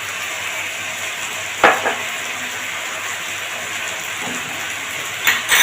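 Chicken and capsicum stir-frying in sauce in a hot pan, a steady sizzle. A utensil knocks sharply against the pan about one and a half seconds in, and clicks twice more near the end.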